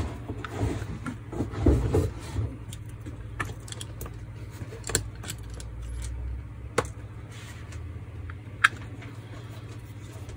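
Screwdriver scraping and clicking against the metal gearbox housing and small parts of a Metabo MFE40 wall chaser being taken apart. A rustling, scraping patch comes early, then single sharp metallic clicks a second or two apart, over a steady low hum.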